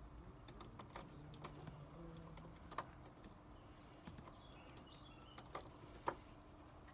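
Faint, sparse clicks of small side cutters nipping and stripping the insulation off a thin wire, the sharpest about six seconds in.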